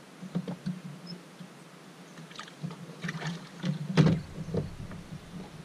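Knocks and clatter of handling on a bass boat's deck as a largemouth bass goes into the livewell, with one sharp knock about four seconds in as the livewell lid is handled. A low steady hum runs underneath.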